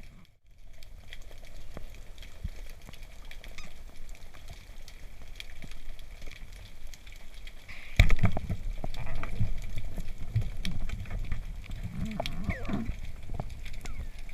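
Underwater noise with a sharp loud knock about eight seconds in, followed by rumbling, clattering and low wavering tones.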